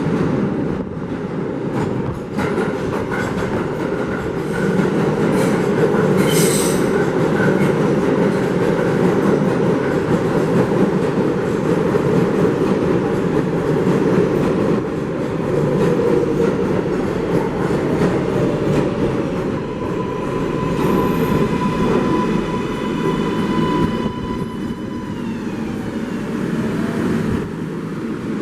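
A 7 subway train running through an underground station with a steady heavy rumble. A brief high screech comes about six seconds in, and near the end an electric motor whine falls in pitch and fades.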